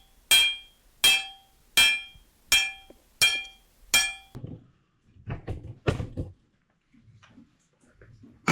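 Metal being struck, six evenly spaced blows about three every two seconds, each ringing briefly, stopping about four seconds in; softer knocks and handling noises follow.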